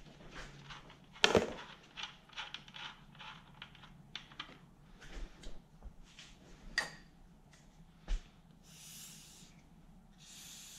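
Hard items clicking and knocking, with one sharp knock about a second in and a run of small clatters, as a can is picked off a cluttered shelf. Near the end an aerosol spray can hisses in two short bursts.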